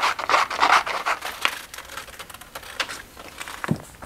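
Scissors cutting through a sheet of printer paper: a run of quick crisp snips and paper rustling, densest in the first second and a half and then thinning out to lighter rustles of the paper being handled.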